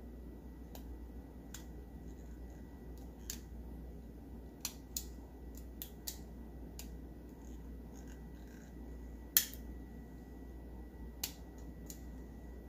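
Scattered sharp clicks and snaps of a small hand tool cutting and prying at the melted plastic seal on the base of a 1971 Hot Wheels Sizzler toy car, the loudest about nine seconds in. A steady low hum runs beneath.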